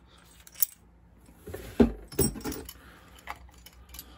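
Metal clicks and clinks from two handheld HVLP mini spray guns, ANI R150-Q and R160-Q, as they are handled with their air caps off. A few separate sharp knocks, the loudest two close together about two seconds in.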